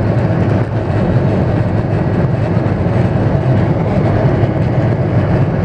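Cabin noise of a Malaysia Airlines Boeing 737 on its take-off roll: the jet engines at take-off thrust and the wheels rumbling over the runway, heard from inside as a loud, steady, low din.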